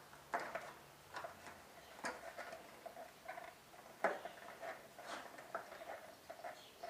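Irregular small clicks, taps and light rattles of hands handling motorcycle parts: the speedometer, its cable and the headlight fittings, with a few faint squeaks.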